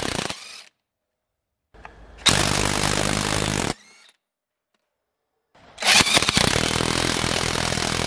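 Cordless impact wrenches hammering on car wheel nuts in three bursts separated by silent cuts. A Parkside PASSK 20-Li A1 stops about half a second in. A DeWalt DCF894 hammers for about a second and a half in the middle. The Parkside starts hammering again near six seconds in, tightening a nut.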